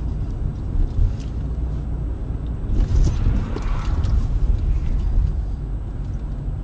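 Car on the move: a steady, heavy low rumble of engine and road noise, with a few faint clicks about a second in and a short louder noisy burst about three seconds in.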